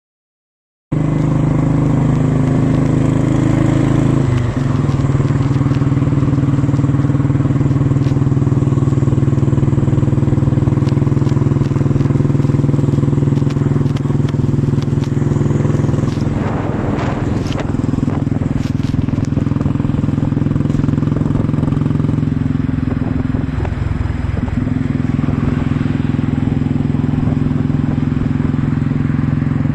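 Restored motorcycle's engine running steadily on a ride, starting about a second in, its pitch shifting a few times as the speed changes.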